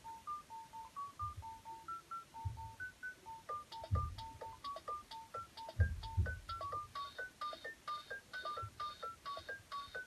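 Fisher-Price toy smartphone playing an electronic ringtone through its small speaker: a simple tune of short beeping notes over a drum beat, with a fast ticking layer that gets busier about seven seconds in.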